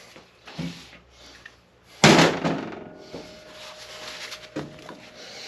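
A transmission front pump body set down on a stainless-steel workbench: one loud metal clunk about two seconds in, with a faint ring after it and a few lighter knocks of parts on the bench.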